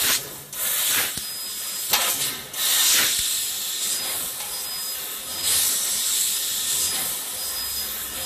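Gas hissing at the cutting head of a 2 kW laser tube cutter as it cuts thin stainless steel square tube. The hiss breaks off briefly a few times in the first three seconds, with a few sharp clicks, then runs steadily.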